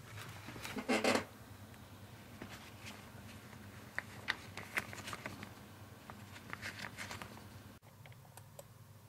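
Handling noise from a rubber-gloved hand on a plastic computer case: a short rustle about a second in, then scattered light clicks and scratches.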